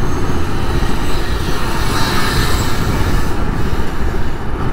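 Wind rumbling on the microphone of a moving motorcycle, over the bike's engine and road noise, with a brief rise in hiss about two seconds in.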